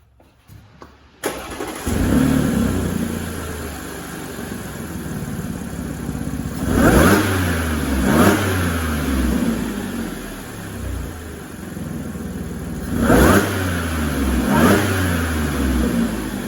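Audi Q5's supercharged 3.0 TFSI V6 starting about a second in and idling, then blipped twice in quick succession, and twice more about six seconds later, breathing through a silicone intake coupler fitted in place of the intake muffler.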